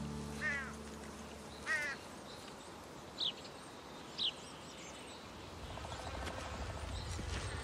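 Birds calling over faint outdoor ambience: two wavering calls in the first two seconds, then two short, higher calls about a second apart. The background hum of the open air swells near the end.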